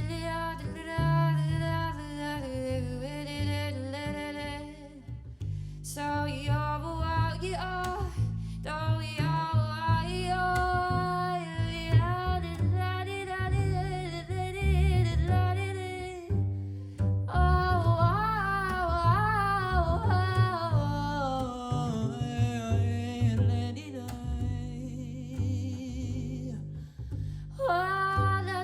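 Small jazz group playing an instrumental passage of a ballad: double bass plays steadily underneath while a single solo melody line winds above it, stopping briefly a few times between phrases.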